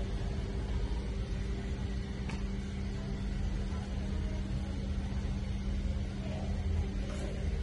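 Steady low hum over a low rumble, with a faint click about two seconds in.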